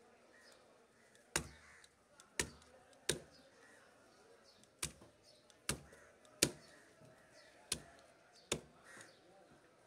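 A large curved knife chopping through a fish head onto a stone slab: eight sharp strikes at uneven intervals, about one every second.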